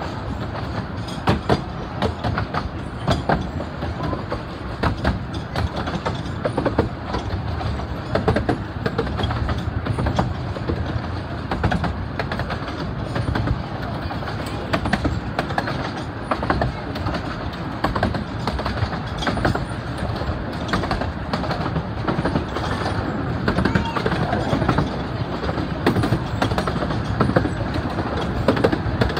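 Carriage of a 15-inch-gauge miniature steam railway running along the track: a steady rumble of wheels on rail with frequent irregular clicks and knocks.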